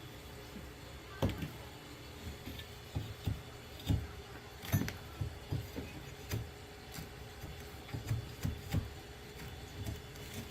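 Scattered, irregular knocks and clunks from hand tools working on rotted floor boards as they are pried up.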